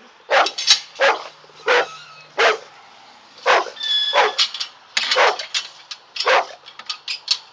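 Dog barking repeatedly, in short barks roughly one or two a second.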